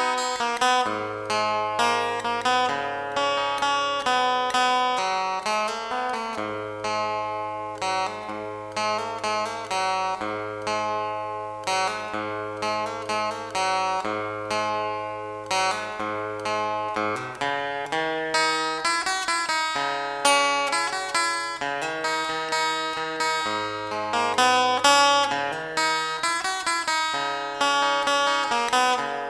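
Background music: plucked acoustic guitar playing a steady picked melody over a bass line.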